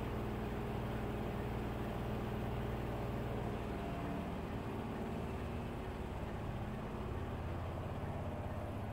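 Steady low mechanical hum, its tones shifting slightly a few seconds in.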